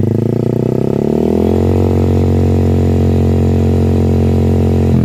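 Rouser 180's single-cylinder engine through an SC Project MotoGP can-type slip-on exhaust, revved up over about a second and a half and held steady at half revs. It drops back toward idle at the very end.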